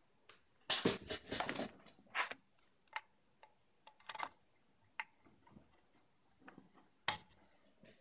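Headphone cable and plug being handled: a burst of rustling and knocking about a second in, then a few single sharp clicks as the plug is pushed into the headphone jack of a Pro-Ject headphone amplifier.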